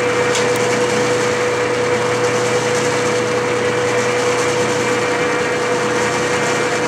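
Clausing metal lathe running steadily under power during a light clean-up pass on an external Acme thread, with a constant machine hum carrying one steady tone.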